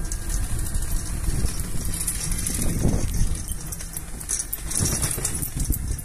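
Low, uneven rumble of handling and movement noise from a handheld camera carried along a road, with scattered faint clicks and two soft thumps.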